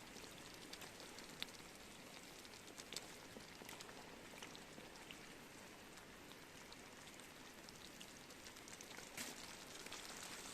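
Faint campfire crackling: scattered sharp pops and ticks over a soft steady hiss, with a slightly louder burst of crackles about nine seconds in.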